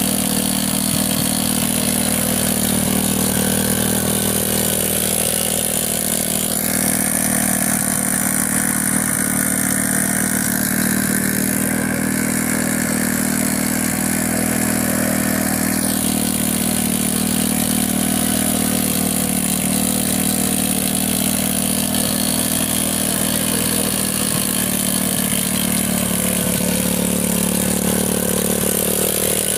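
Motorcycle engine of a homemade walk-behind mini tractor running steadily while it pulls its plough through dry soil.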